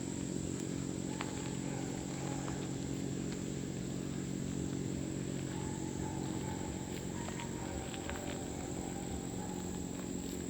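Steady high-pitched chorus of crickets or other insects, with a steady low hum underneath and a few faint clicks.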